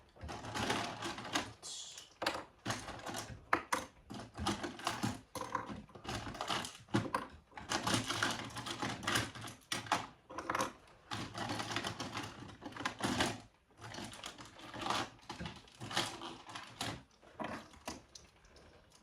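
Rapid, irregular clicking and rattling of small plastic Lego pieces being handled and moved about.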